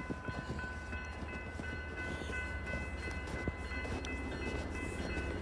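Grade-crossing warning bell ringing as a steady, high, bell-like tone over the low rumble of an approaching BNSF train.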